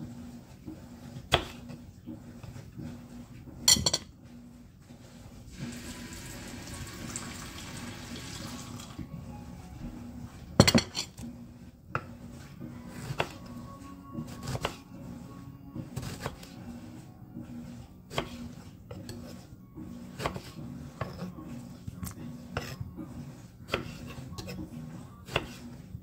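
A chef's knife slicing eggplant on a wooden cutting board: a sharp tap each time the blade hits the board, about one a second in the second half. There are two louder clatters, near the start and about halfway, and a few seconds of steady hiss like running water before the halfway clatter.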